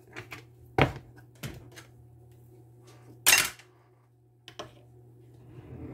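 Several separate knocks and clatters as a wooden soap-loaf mold with a silicone liner is handled and set down on a plastic cutting board over a metal sheet pan; the loudest knock comes a little past the middle.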